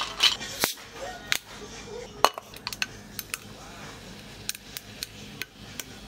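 Ice cubes clinking into a double-walled stainless steel cup, then cola poured over the ice, with scattered sharp clicks and clinks as the cubes settle.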